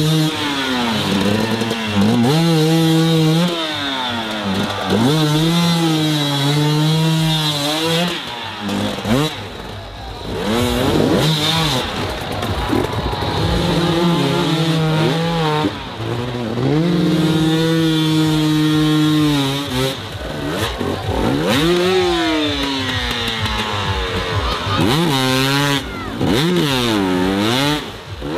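Enduro motorcycle engines revving hard in repeated surges, pitch climbing and falling and sometimes held at high revs for a second or two, as the rear wheels spin for grip in the mud.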